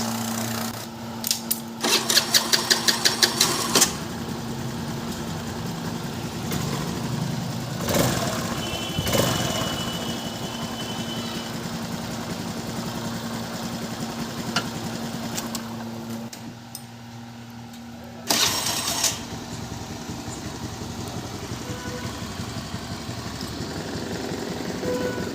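Honda Activa HET scooter being started on its electric starter: a rapid rattling clatter of about eight strikes as it cranks, the starter gear noise that is the fault, then the engine idling. Near the end the engine goes quiet and is started again with another short loud burst.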